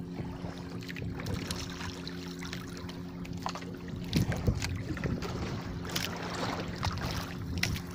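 A small engine running steadily at constant speed with an even hum, and a few light knocks and clicks scattered through it.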